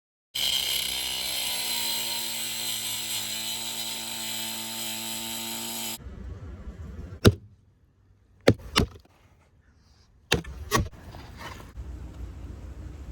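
A power tool motor running steadily for about five and a half seconds, then stopping, followed by a few sharp knocks.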